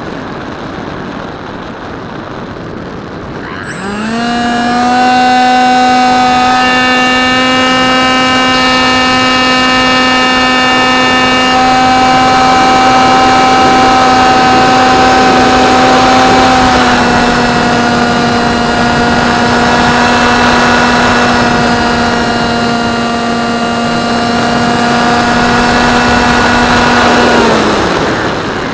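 Electric motor and propeller of an AXN Clouds Fly Floater Jet RC foam plane, heard from a camera on board, over steady wind rush. About four seconds in, the motor spools up quickly to a steady high whine with many overtones. It holds for over twenty seconds with a slight drop in pitch midway, then throttles back near the end, its pitch falling away until only the wind rush is left.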